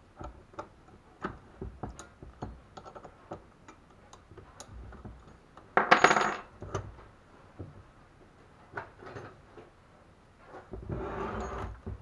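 Clicks and knocks of a power drill and a car alternator being handled on a wooden workbench, with a loud metallic clatter about halfway through and a longer scraping stretch near the end as the alternator is moved.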